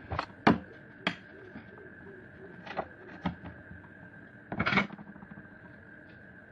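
Kitchen utensils clinking and knocking against cookware as boiled oregano leaves are lifted out of hot water with a strainer: several sharp separate clinks, then a quick cluster of knocks near the end, over a faint steady high whine.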